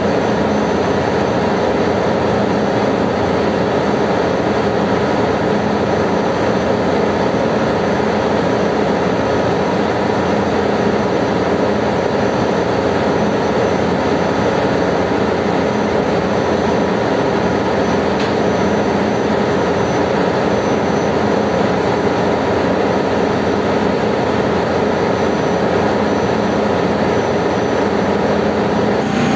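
Steady, loud drone of ship's engine-room machinery, a constant roar of noise with a low hum running through it and no change in level.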